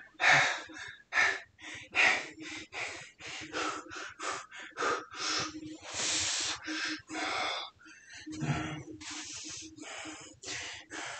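A man breathing hard and fast in a steady rhythm, short forceful breaths in and out, while doing a long set of bodyweight squats. He gives a short voiced grunt about eight seconds in.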